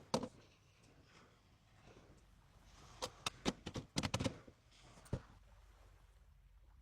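Scattered light clicks and knocks of objects being handled, coming in a few quick clusters.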